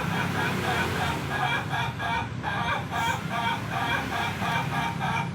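Ayam ketawa rooster crowing: a long run of rapid, evenly repeated notes, about three a second, in the breed's laughing style.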